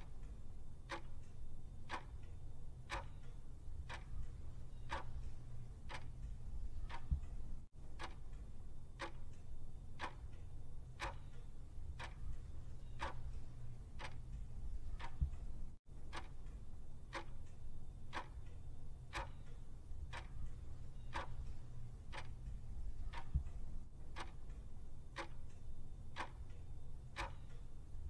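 Clock-tick sound effect marking a quiz countdown timer: even, regular ticks over a low steady hum, briefly cutting out twice.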